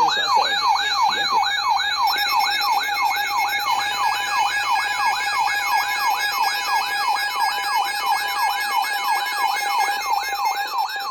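Electronic yelp-style alert tone from an emergency alert broadcast, sweeping rapidly up and down about three or four times a second. Fainter steady beeping tones join in from about two seconds in.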